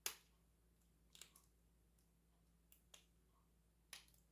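Faint, scattered clicks of a steel hook pick working the pins inside a Master Lock 410 lockout padlock, about six light ticks over four seconds, the first one the sharpest.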